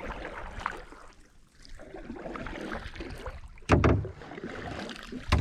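Canoe being paddled: paddle strokes splashing in the water, with two louder knocks in the second half.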